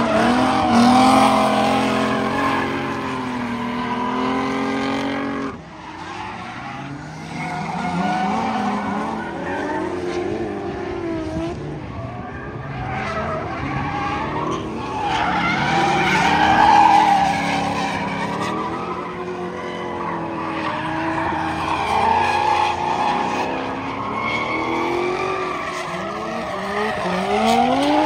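Drift cars sliding through corners on the throttle: engines revving hard, their pitch rising and falling with throttle and gear changes, over tyres screeching on the asphalt. The sound changes abruptly about five seconds in as one car's run gives way to another's, and an engine climbs in pitch near the end.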